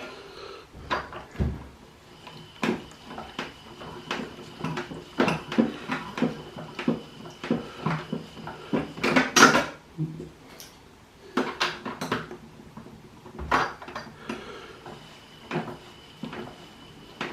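Klein Miele toy washing machine: irregular plastic clicks, knocks and rattles as it is worked by hand, with a faint steady high tone running underneath.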